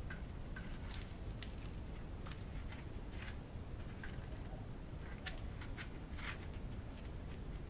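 Faint scattered clicks and scrapes of an AN hose-end fitting being pushed and worked into a steel-braided PTFE fuel hose held in a bench vise, over a steady low background rumble.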